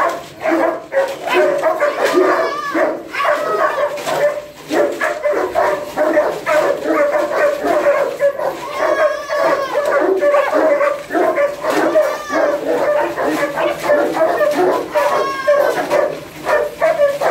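Several kennelled dogs barking, yelping and whining at once in a continuous din, an excited reaction to their handler.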